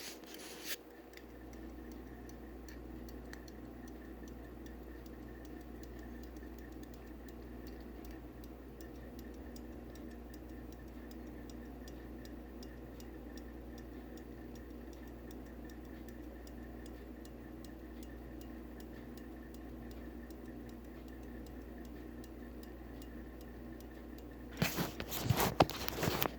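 Antique fusee pocket watch ticking steadily and quickly while running, faint. Near the end, louder handling knocks and rustles as the watch case is worked.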